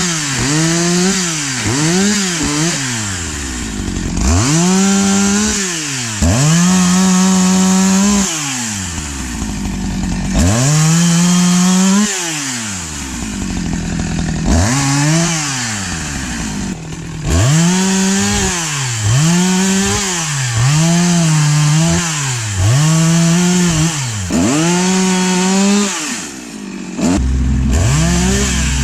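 STIHL MS 462 chainsaw cutting into a maple log, the engine revved up to full speed and held through each cut, then dropped back to idle, over and over. A second, lower steady engine sound comes in near the end.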